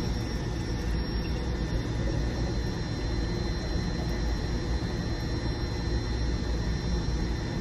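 Steady machinery drone, deep and even, with a thin high whine held over it.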